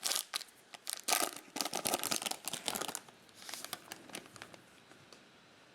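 Trading cards and their plastic pack wrapping being handled: crinkling and rustling with quick clicks, busy for about three seconds, then thinning out to faint rustles.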